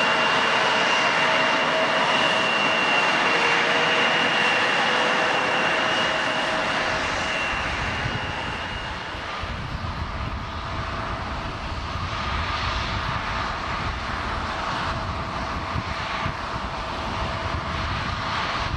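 A jet airliner's engines, loud with a high-pitched whine over a dense roar. About eight seconds in the whine fades and the sound drops to a lower, quieter rumble as the aircraft moves away.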